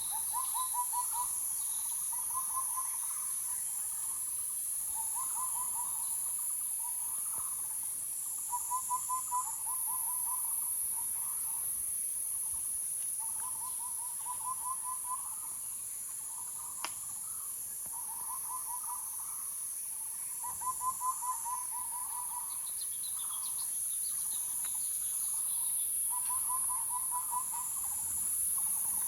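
A bird calling: short, quick trills of several notes each, repeated every couple of seconds, over a steady high-pitched insect chorus. A single sharp click sounds midway.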